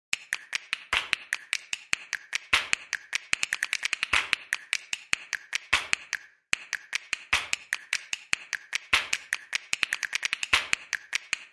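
Typing sound effect: a fast, uneven run of keystroke clicks, with a short break about six seconds in.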